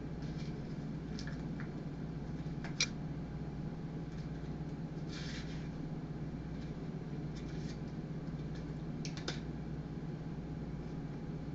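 A small cat-food can knocked and scraped on a hard floor as a cat paws and bites at it trying to open it, giving a few scattered clicks and scrapes: a sharp one about three seconds in and a quick pair about nine seconds in. A steady low hum runs underneath.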